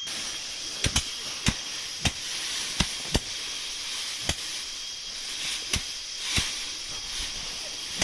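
Dry rice straw crackling and rustling as a heap of cut stalks is worked by hand, with a sharp crisp snap every half second to a second.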